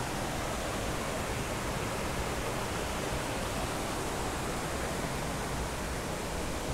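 Steady rush of river water running over rocks and small rapids.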